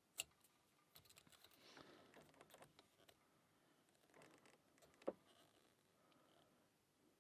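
Faint scraping and light ticking of a lock pick and tension tool working the pins of a pin-tumbler challenge lock, with two sharper metal clicks, one about a quarter second in and one about five seconds in.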